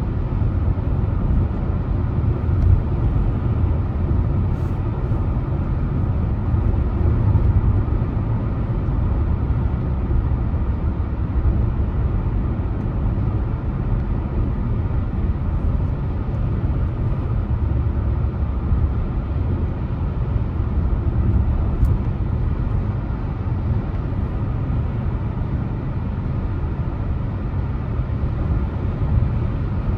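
Car driving at steady speed: continuous low rumble of engine and tyre noise, with a few faint ticks.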